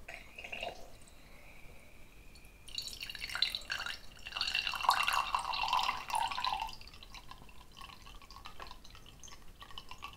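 Carbonated water pouring from a uFlow mini keg's tap into a wine glass under low CO2 pressure. The pour is fainter at first, runs louder from about three to seven seconds in, then tails off into drips.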